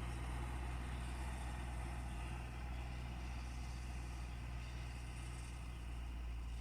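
Tractor engine running steadily with a low drone.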